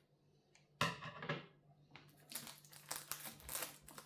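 Packaging being handled: one sharp knock just under a second in, then crinkling and rustling in irregular bursts from about halfway on.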